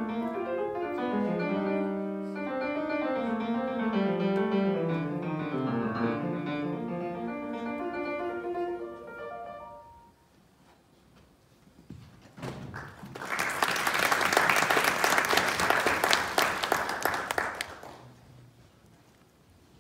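Grand piano played solo, the piece ending about ten seconds in with a last note dying away. After a short pause, an audience claps for about five seconds before the clapping fades.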